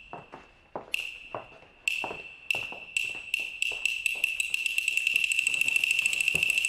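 A high single-pitched electronic beeping sound effect, its beeps starting about a second apart and coming faster and faster until they run almost together. Soft knocks sound beneath it.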